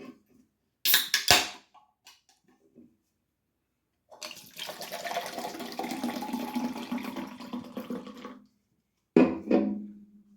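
A drink poured into a cup in one steady stream for about four seconds, after a couple of sharp knocks near the start; a short loud noise comes near the end.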